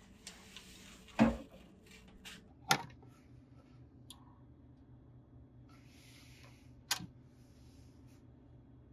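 Vinyl record being set on a turntable and the tonearm handled: a dull thump about a second in, then sharp clicks near three and seven seconds, over a faint low hum.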